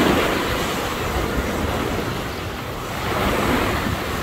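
Surf washing onto a sandy beach, a steady rush that swells twice, with wind on the microphone.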